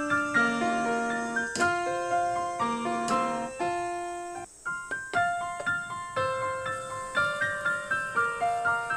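Background piano music: a light tune of single struck notes, each fading away, with a brief break about halfway through.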